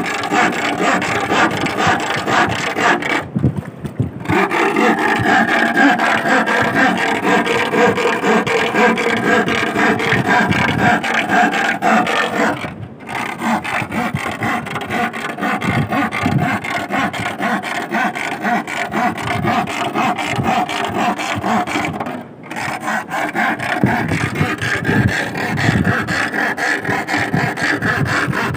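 Iron rod scraped in a rapid, continuous rasp, broken by short pauses about three seconds in, near the middle and about three-quarters through. This is the metal noise used to draw sea worms (sasing) up out of the sandy seabed.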